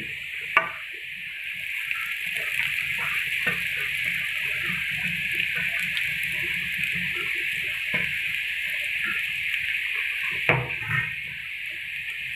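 Noodles and fried vegetables sizzling in a hot metal wok, a steady hiss, with a sharp knock against the pan about half a second in and a few lighter knocks later as the noodles are tipped in and stirred.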